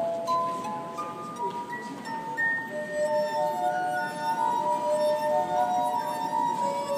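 A street performer's instrument playing a slow melody of long, ringing pure notes that overlap and sustain.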